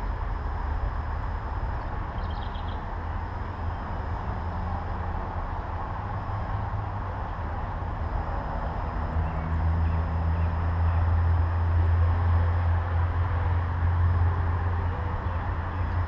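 Steady low outdoor rumble that grows louder about ten seconds in, with a couple of faint high bird chirps about two seconds in.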